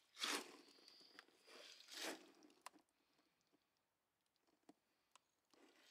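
Faint rustling twice, near the start and about two seconds in, then a few light clicks.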